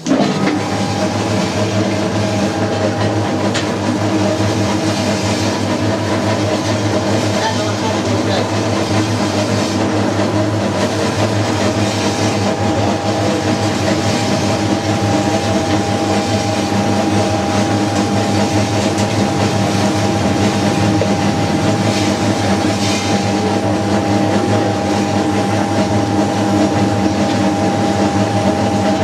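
Motor-driven naswar mixing machine switched on: it starts at once and runs with a steady hum while its vertical shaft churns the powder in the steel pan.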